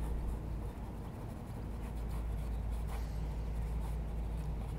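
Paintbrush strokes rubbing and scratching oil paint onto a painting panel, soft and repeated, over a steady low rumble.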